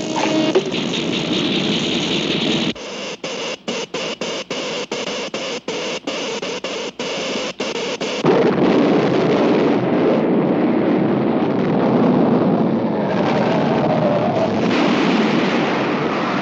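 Cartoon sound effects of an electrically triggered earthquake: a loud hissing crackle that stutters with rapid cut-outs for several seconds, then a heavier sustained rumble.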